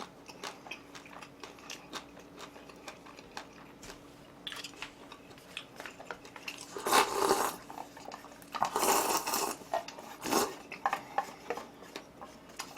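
Chopsticks and utensils clicking and clattering against dishes during a meal, with a few louder spells of handling noise about seven, nine and ten seconds in.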